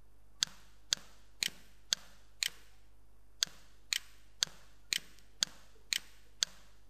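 Sharp, even ticking at about two ticks a second, with one beat skipped about halfway through.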